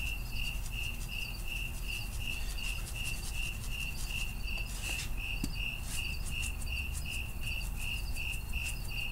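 A cricket chirping steadily, a high pulsed chirp about three times a second, with a few faint light ticks of a spice shaker being shaken.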